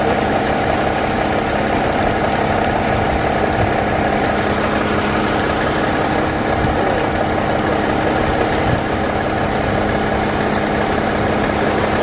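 Fire apparatus engine running steadily at idle: a constant drone with a few steady low tones under a broad noise.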